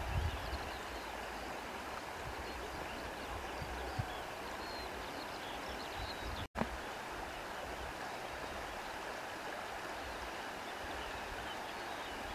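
Wind blowing through grass: a steady rustling hiss, with low rumbles of gusts buffeting the microphone. The sound cuts out for a split second about six and a half seconds in.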